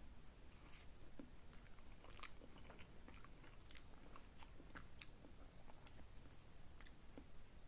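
Faint close-miked eating of Korean noodles: soft, wet chewing with many small irregular mouth clicks and smacks.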